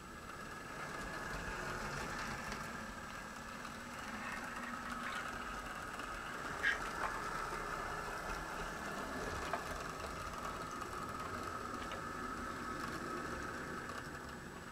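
Model diesel locomotive running along the layout's track: a steady motor-and-gear whine with a few sharp clicks of wheels over track joints or switches, starting as the train moves off and stopping as it halts.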